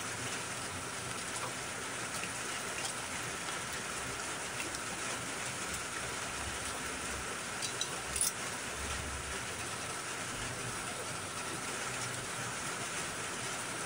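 Steady rain falling, an even hiss of drops, with a few faint clicks about eight seconds in.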